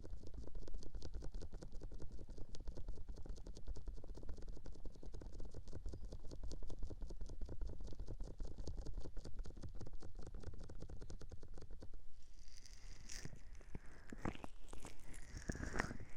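Fast, steady scratching or rubbing close on a binaural microphone, ASMR-style. About twelve seconds in it gives way to sparser, higher-pitched handling sounds.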